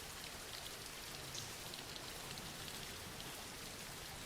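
Gentle rain falling steadily, an even soft hiss with faint scattered drop ticks.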